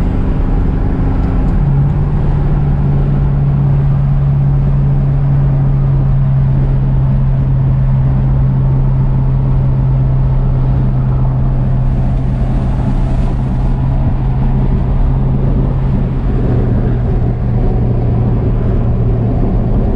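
Cab-interior sound of a 1949 Chevy 3100 pickup under way: its first-generation small-block V8 holds a steady low drone over road noise. The engine note rises slightly about a second and a half in and drops a little around sixteen seconds.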